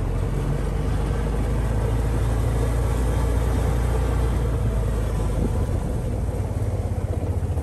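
Engine of an open farm utility vehicle running steadily as it drives along a gravel lane, a low drone. About six seconds in, the note turns into a fast, even throb as the vehicle slows.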